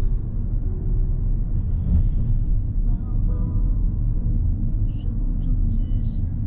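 Steady low road and engine rumble of a 2022 Mazda3 hatchback driving on city streets. Faint music or a voice sits underneath, and a few short high clicks come near the end.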